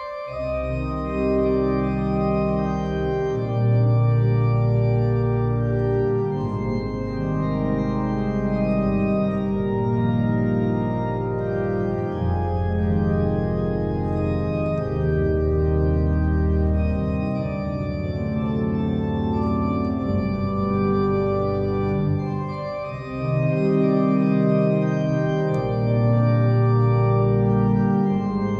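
Organ playing a slow melody over sustained chords, with held pedal bass notes that change every couple of seconds. The music starts right at the beginning and dips briefly in loudness about 22 seconds in.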